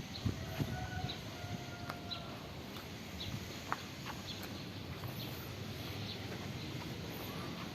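Outdoor background hiss with scattered short bird chirps, a couple of brief steady calls in the first two seconds, and a few light clicks.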